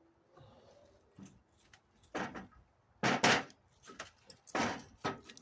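A series of sharp knocks and clunks from go-kart parts and tools being handled during assembly. The loudest come about three seconds in and again about four and a half seconds in.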